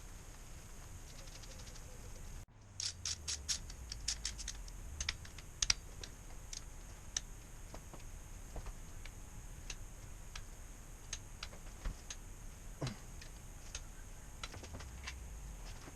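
Scattered light metallic clicks and taps of engine parts and hand tools being handled, with a quick run of clicks about two and a half seconds in and sparser ones after.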